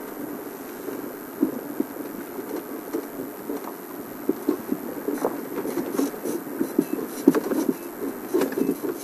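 Open game-drive vehicle moving slowly over a rough dirt track: a steady engine-and-road rumble with many rattles and knocks from the bodywork, coming more often in the second half.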